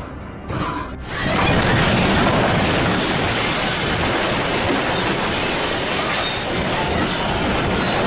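Earthquake shaking a restaurant: a loud, continuous rumbling rattle of the building, its furniture and its fittings, like a passing train, starting abruptly about a second in.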